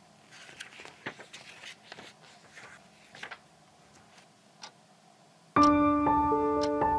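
Soft rustling and a few light clicks, then about five and a half seconds in a pendulum wall clock suddenly starts chiming a melody, its notes ringing on over one another, the loudest sound here.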